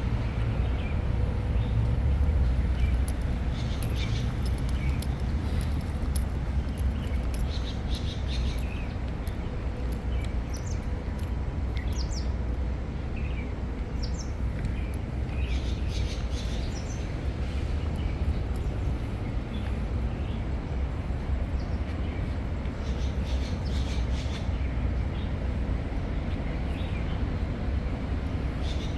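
Birds chirping: many short, high calls come and go over a steady low rumble.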